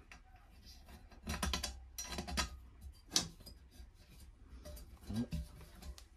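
Small metal latch pieces clicking and scraping against a metal target plate as they are pushed into its slots. The clicks come in several short clusters.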